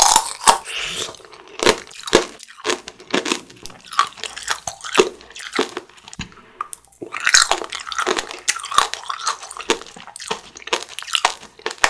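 Close-miked biting and chewing of cherry tomato tanghulu, its hard sugar shell cracking into loud crunches with wetter squishy chewing between. The loudest crunching comes right at the start and again about seven seconds in.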